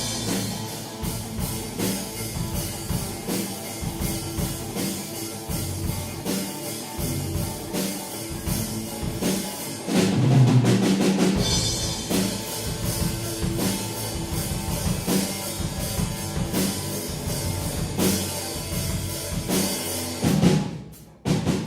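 Instrumental rock music: a steady drum-kit beat with bass and guitar, which cuts off suddenly near the end.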